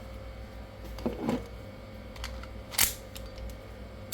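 A few sharp handling clicks and light knocks from small hard gear. The loudest click comes about three seconds in, with a short dull scrape a second in.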